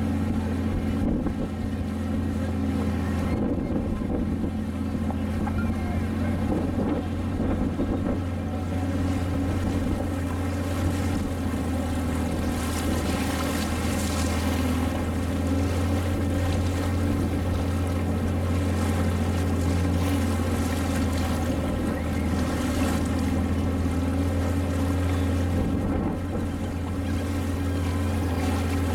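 Engine of a small passenger launch running steadily under way: a deep, even drone that holds its pitch throughout, with a hiss of water and wind over it.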